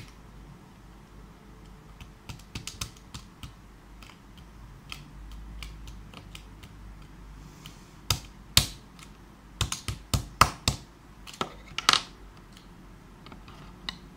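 Scissors snipping and stiff plastic blister packaging clicking and crackling as a coin-cell watch battery is cut out of its pack: a scatter of sharp, irregular clicks, thickest in the second half.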